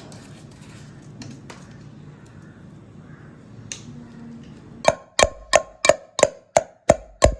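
A steady run of sharp knocks, about three a second, each with a short metallic ring. They begin about five seconds in, after a stretch of faint background.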